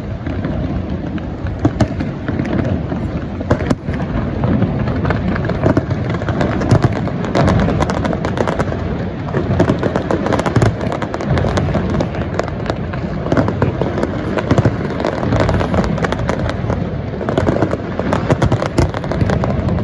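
Aerial fireworks display: a dense, unbroken stream of crackling and popping with many sharp bangs over a low rumble of bursts.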